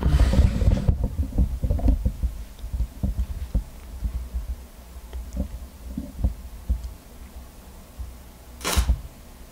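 Handling noise: low thumps and knocks, dense for the first few seconds as the camera is moved, then sparse, with a brief hiss near the end.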